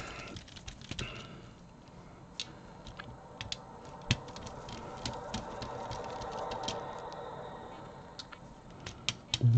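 Small, sharp clicks and taps of plastic parts and screws as an Xbox controller is taken apart, with a faint steady whir in the middle of the stretch.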